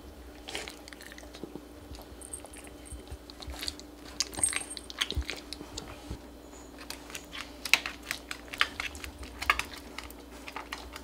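A pet crunching and chewing dry kibble: irregular crisp crunches, coming thicker and louder in the second half.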